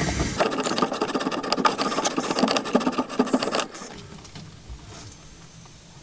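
Pipe slice being turned around a copper water pipe to cut it through, giving rapid, regular scraping clicks for about three seconds that then stop.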